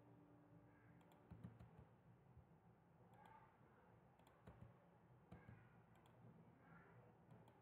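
Near silence over a faint room hum, with a handful of soft computer-mouse clicks spread through as lines are drawn point by point in CAD software.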